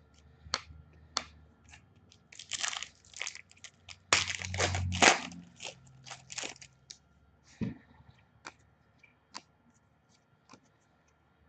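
Foil trading-card pack wrapper being torn open and crinkled, with cards handled. The crackling is densest and loudest about four to five seconds in, then thins to a few faint clicks.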